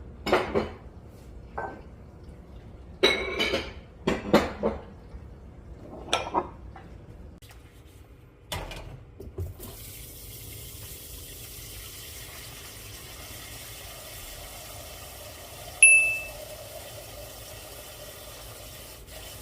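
Dishes and cookware clattering and knocking several times, then water running steadily from about ten seconds in. One short electronic beep sounds over the water near the end.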